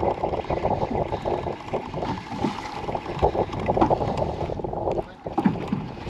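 Spinning reel cranked steadily, a fast whirring rattle from its gears and rotor as line is wound in with a small fish on. It pauses briefly near the end. Wind buffets the microphone underneath.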